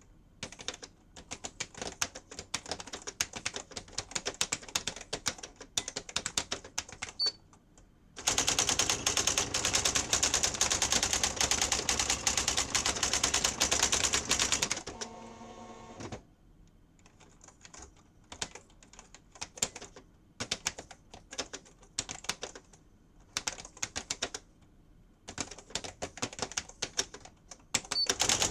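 Sears 10k40 electronic daisy wheel typewriter: irregular key clicks as text is keyed in, then a loud rapid clatter of the daisy wheel printing for about six seconds. A short motor whirr follows, like the carriage returning, then more key clicks, and the printing clatter starts again at the very end.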